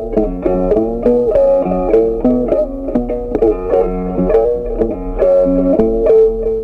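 Background instrumental music on a plucked string instrument: a melody of quick, clearly picked notes over a steady low bass tone.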